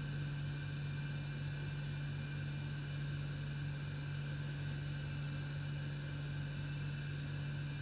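A steady low machine hum with fainter steady higher tones above it, unchanging throughout; the tiger's eating is too quiet to stand out.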